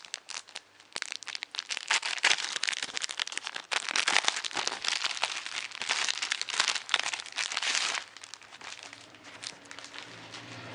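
Packaging crinkling and rustling as a partwork magazine and its parts are unwrapped by hand, busiest for the first several seconds, then quieter handling near the end.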